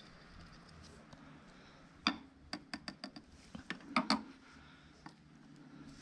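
A quick run of sharp clicks and taps, about a dozen in two seconds and loudest near the end, from a screwdriver and the plastic fairing parts of a motorcycle being fitted back on.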